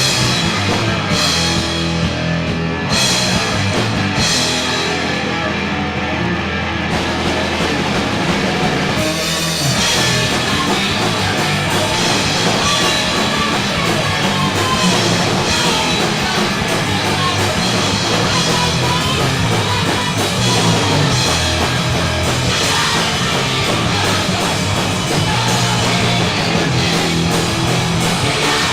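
Punk rock band playing a song live, guitar and drums coming in together at full volume. The sound grows brighter with cymbals about seven seconds in, with a brief break about nine seconds in before the band carries on.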